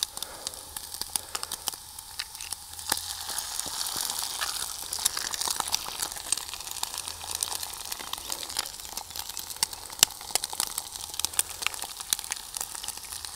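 Eggs frying in a pan on a camp stove: steady sizzling with many small crackles and pops.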